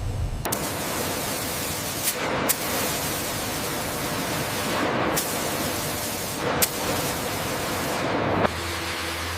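Steady hiss of a high-pressure spray, starting about half a second in, broken briefly a few times, and stopping about a second before the end, leaving a low hum.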